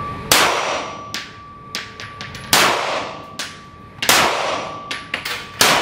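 Heckler & Koch P30L pistol fired four times in an indoor range, the shots one and a half to two seconds apart, each followed by a long echo. Lighter clinks and clicks come between the shots.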